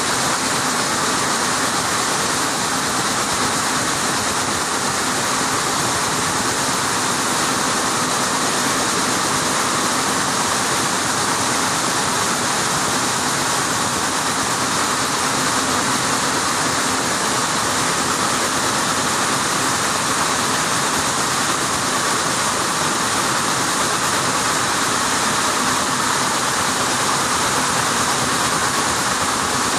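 Rows of automatic weaving looms running together: a loud, steady mechanical noise with no pauses.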